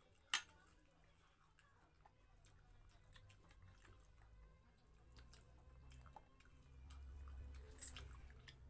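Faint eating sounds: chewing and small clicks of tableware. A sharp click comes about a third of a second in, and another near the end.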